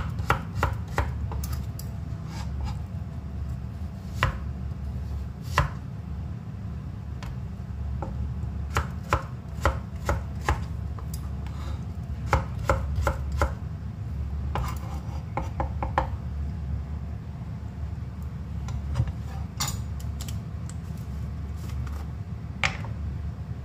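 Kitchen knife slicing peeled raw potatoes on a cutting board: irregular sharp knocks of the blade striking the board, some in quick clusters, over a steady low hum.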